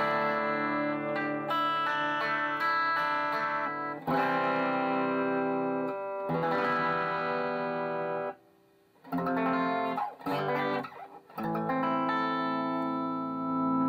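Electric guitar with P-90 pickups played through a Marshall Vintage Modern 2466 100-watt valve head with KT66 power valves, on its high dynamic range channel with the volume knob turned down to 2. Chords are struck and left to ring, with a short break about eight seconds in.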